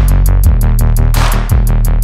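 Background electronic music with a drum-machine beat: quick, even hi-hat ticks, deep kick drums and a snare over a sustained bass line.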